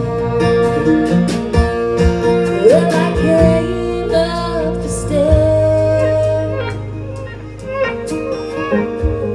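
Live band music: acoustic guitar and electric bass playing, with long held and sliding melody notes above them.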